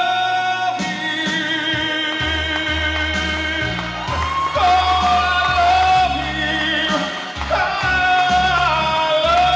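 A man singing long, high held notes with a wide vibrato into a microphone over a karaoke backing track with a steady bass line. Two sustained notes swell near the middle and again near the end.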